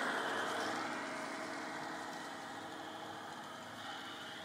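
Large-scale garden model train running past on its track, the hum of its motor and wheels on the rails fading steadily as it moves away.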